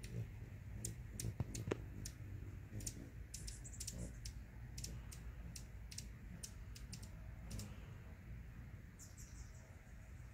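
Hummingbirds giving short, high chip notes at irregular intervals, with a brief high chattering run about three and a half seconds in and another near the end, over a low steady rumble.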